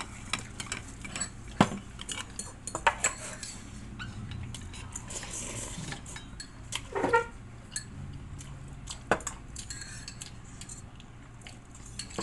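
Metal fork and spoon clinking and scraping against a bowl of ramen in scattered sharp clinks, with a slurp of noodles about five to six seconds in.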